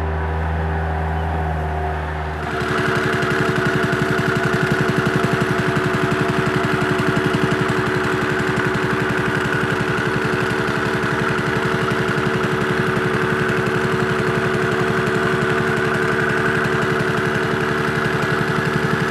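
A skid steer loader's engine running while it pushes base rock, then, from about two and a half seconds in, a louder gas-powered jumping-jack rammer pounding in a fast, even rhythm as it compacts the gravel base rock.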